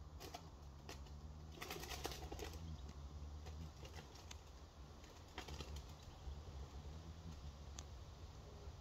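Hummingbird hawk-moth's wings humming as it hovers at flowers, a low, faint buzz that swells and fades as it moves. A few faint clicks about two seconds in.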